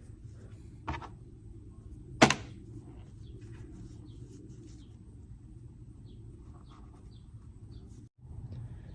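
Small metal bicycle parts being handled on a workbench: a light click about a second in and a louder, sharp click with a brief ring just after two seconds, then faint small ticks, over a low steady hum.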